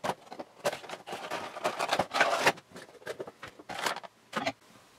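Cardboard and plastic packaging of a Funko Pop box rustling and scraping as the vinyl figure is taken out, in a run of short rustles and clicks that stops about four and a half seconds in.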